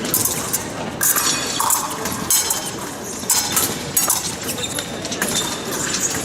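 Épée blades clinking against each other in quick irregular strikes, mixed with the knocks of fencers' feet on the piste during a bout.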